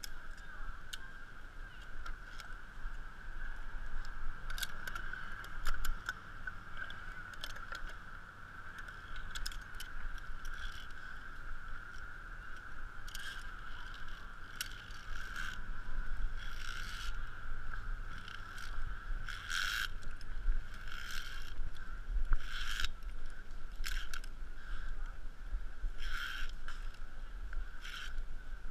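Climbing gear clinking, knocking and scraping as a climber works along the steel cables and hanging obstacles of a high ropes course. A steady high-pitched drone runs underneath, with rumble from the camera being handled.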